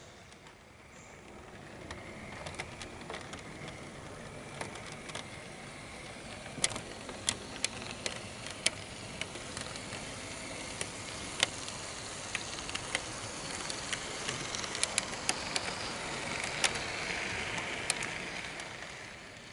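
HO-scale model diesel locomotive rolling past on its track: a steady running noise of motor and wheels that swells and fades, with scattered sharp clicks as the wheels cross the rail joints.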